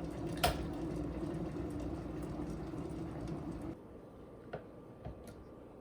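Steady low mechanical hum with a sharp click about half a second in; the hum stops abruptly a little over halfway, leaving a quieter background with a few faint light ticks like utensils touching dishes.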